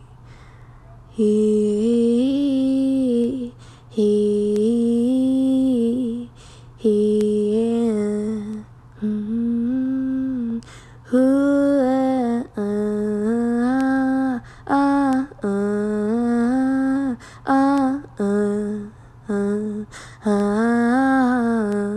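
A female voice humming a wordless melody in short phrases of one to three seconds, with brief pauses between them. A faint steady low hum runs underneath.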